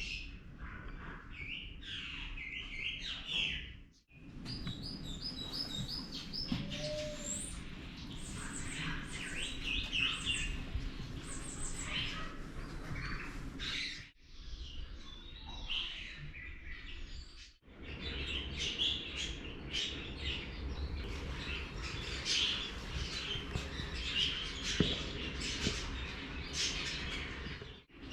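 Many small birds chirping and trilling at once, a dense mix of short high calls over a low steady background rumble. The sound drops out briefly three times, near 4, 14 and 18 seconds, where clips are cut together.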